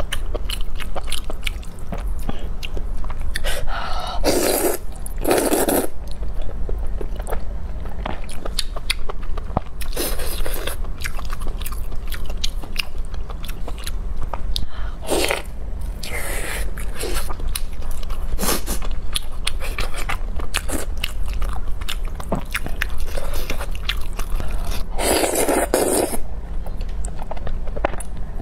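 Close-miked eating: steady wet chewing and biting with crunchy clicks, from spicy fire chicken noodles, beef tripe and chicken feet. Several louder noisy stretches about a second long stand out, around five, ten, fifteen and twenty-five seconds in.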